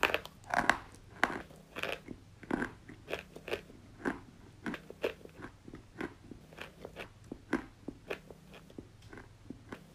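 White school chalk being chewed close to the microphone: a run of crisp crunches, about two or three a second, loudest at first and growing softer and finer toward the end as the chalk breaks down.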